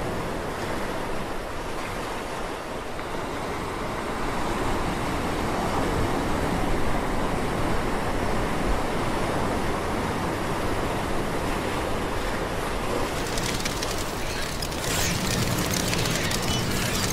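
Ocean waves sound effect: a steady wash of surf. About thirteen seconds in, a busier, crackling high layer joins it.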